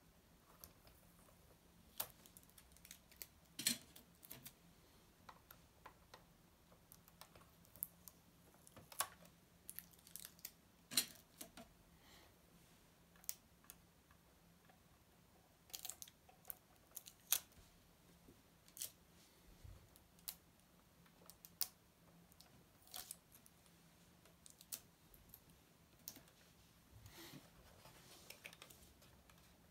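Faint, irregular small clicks and taps of hands handling a 1:18-scale Welly diecast model car, fingers working at its small parts and body.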